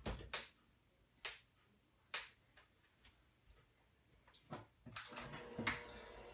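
A few sharp clicks as the electric hand mixer is handled over the metal bowl. About five seconds in, the hand mixer's motor starts and runs with a steady hum as it begins beating the pumpkin batter.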